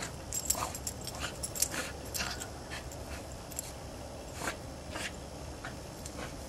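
A dog rolling and thrashing in fresh snow: a quick run of short scuffing, crunching sounds from its body and legs in the snow, packed close in the first couple of seconds and sparser after.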